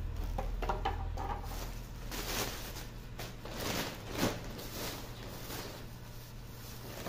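Plastic shopping bag rustling and crinkling in uneven strokes as a hand rummages inside it.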